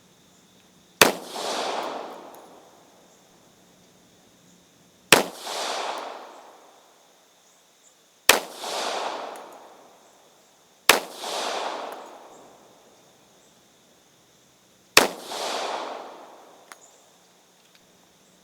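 Springfield Armory M1911-A1 .45 ACP pistol fired five times in slow, unevenly spaced shots. Each sharp report is followed by an echo that dies away over about two seconds.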